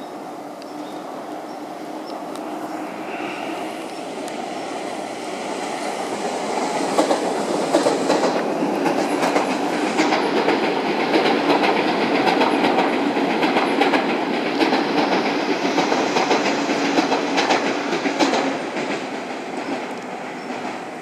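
Sotetsu 9000 series electric train passing close by, growing louder over the first several seconds. Its wheels clack rapidly over the rail joints at the loudest point in the middle, and the sound eases off near the end.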